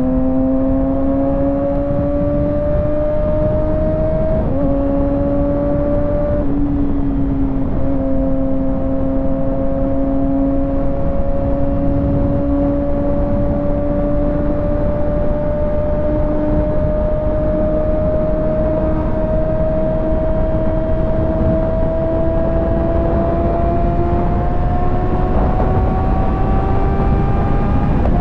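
Kawasaki ZX-6R 636's inline-four engine pulling under throttle, its pitch climbing slowly with two brief dips about four and six seconds in and a steeper rise near the end, over steady wind rush.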